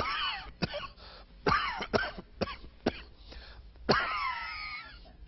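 A man's on-air coughing fit: a run of about seven harsh coughs, irregularly spaced, with a longer drawn-out strained cough about four seconds in.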